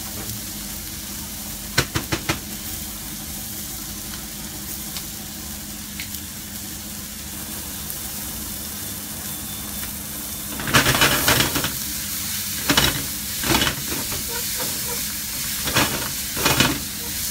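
Chopped vegetables and cherry tomatoes sizzling steadily in a non-stick frying pan. About two seconds in there are a few quick taps from the spice jar as turmeric is shaken in. From about ten seconds in, a spatula scrapes and stirs the food around the pan in loud bursts.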